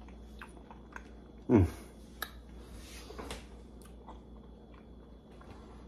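A man's short falling hum about one and a half seconds in, with a fainter one a little after three seconds, among a few faint clicks and taps.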